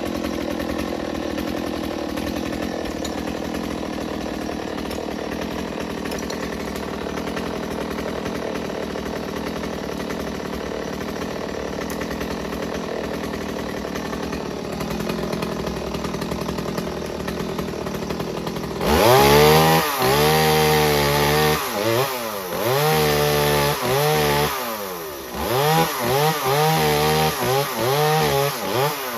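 Chainsaw idling steadily, then about two-thirds of the way through throttled up hard in a series of revs, its pitch rising and falling with each squeeze of the trigger and much louder than the idle.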